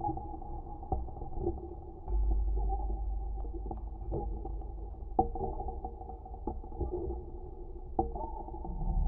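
Dark, eerie ambient drone sound effect: a deep low rumble that swells about two seconds in, held muffled tones above it, and a few soft knocks scattered through.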